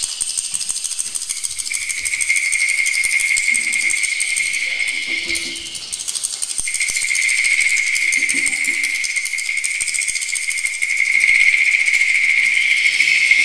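Improvised hand percussion: a rapid, dense shaker or rattle texture with a steady high tone held over it that breaks off briefly about halfway through, and a couple of short soft low drum tones.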